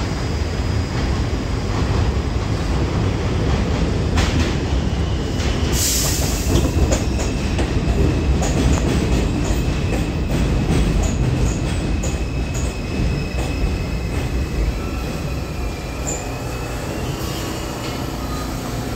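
R142 subway train arriving and braking into the station: a steady rumble of steel wheels on rail with clicks over the rail joints, and a short hiss about six seconds in. A thin, high wheel squeal joins in during the second half as the train slows.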